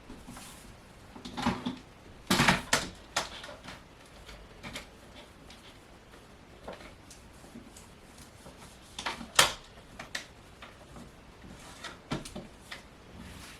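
Irregular handling noises as craft supplies are sorted and put away: light clicks, knocks and rustles, with a cluster of clatter a couple of seconds in and the sharpest knock about nine seconds in.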